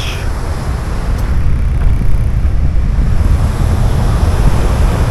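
Wind buffeting the microphone: a loud, steady low rumble that flutters without pause.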